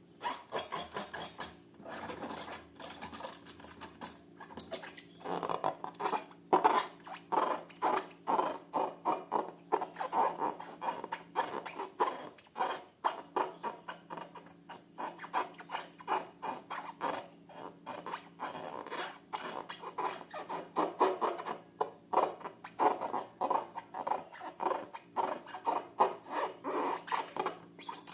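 Repeated, irregular rubbing and scraping strokes from hands working slime-making materials, several strokes a second. A faint steady hum runs underneath.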